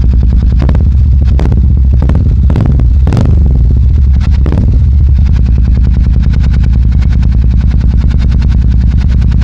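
Royal Enfield Super Meteor 650 parallel-twin engine idling loudly through Rhino Racing aftermarket exhaust pipes with the dB killers removed, heard close to the pipe outlet. There are several quick throttle blips in the first half, then a steady deep burble.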